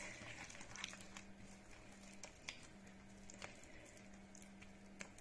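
Faint, soft squishing of fingers working sticky potato bread dough into flour, with a few small wet clicks. A faint low hum cuts in and out behind it.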